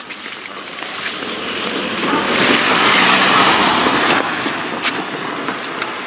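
A vehicle passing by: a swell of road noise that builds, is loudest about two to four seconds in, then fades.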